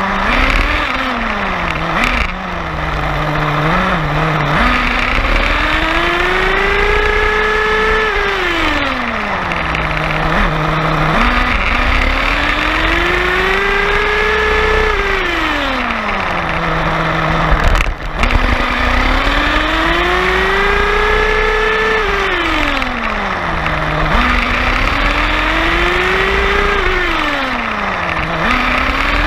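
An RC car's motor, heard from on board, repeatedly winds up and falls back in pitch in long smooth sweeps of several seconds as the car speeds up and slows, over the rush of its tyres on gravel. A knock comes about two seconds in, and a louder bump about eighteen seconds in.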